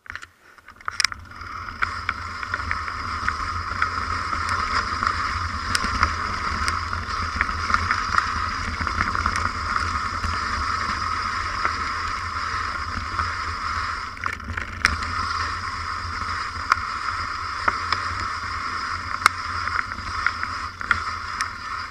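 Mountain bike ridden along a rough dirt track: a steady rush of wind and tyre noise over a low rumble, broken by frequent sharp clicks and rattles as the bike jolts over stones.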